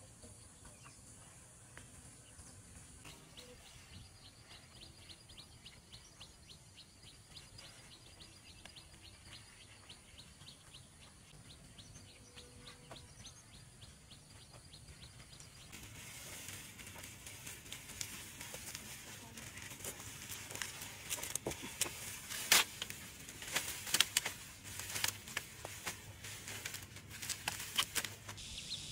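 Faint outdoor ambience with a quick, even train of high insect-like ticks. About halfway through, a louder, irregular rustling and crackling with many sharp clicks takes over, the sound of hands working dry branches and twine.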